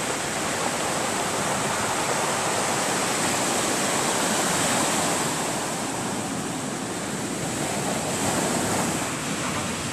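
Sea surf breaking and washing up over a beach of rounded stones: a steady rush of water that swells slightly about halfway through and again near the end.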